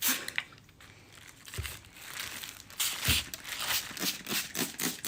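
Handheld spray bottle pumped in quick, even squirts, about three a second, misting water onto clay that has dried out too much. Two dull knocks come before the spraying settles into its rhythm.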